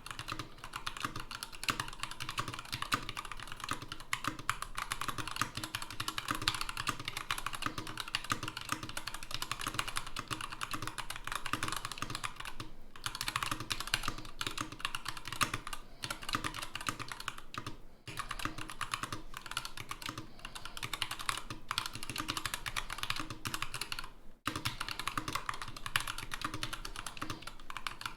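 Continuous fast typing on a Varmilo Sword tenkeyless mechanical keyboard with Tealios linear switches, a stainless steel plate and dye-sub keycaps: a dense stream of key clacks, broken by short pauses about 13, 18 and 24 seconds in.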